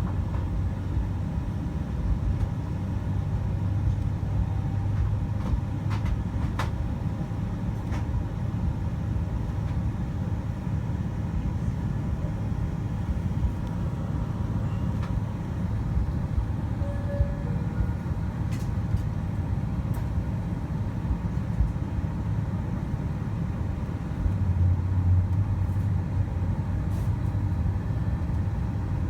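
Low, steady cabin rumble inside a Boeing 747-400 on the ground before takeoff. The rumble swells briefly a little before the end, with a few faint clicks.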